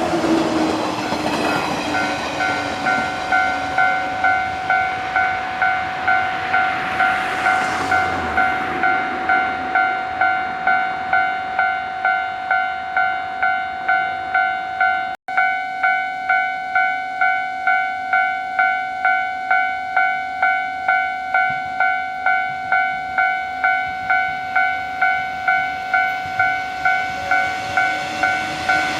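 Japanese railway level-crossing warning bell ringing in an even beat, about one and a half strikes a second. An electric train passes and fades away over the first several seconds, and another train's noise rises at the very end. The sound drops out briefly about halfway through.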